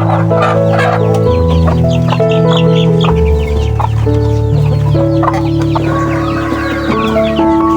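Chickens clucking repeatedly, over background music of held notes that change pitch in steps.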